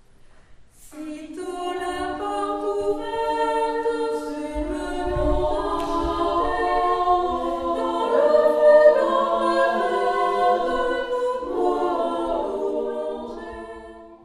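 Choir singing a cappella, recorded live in concert: after a brief pause the voices enter together about a second in and hold sustained chords, then fade away near the end.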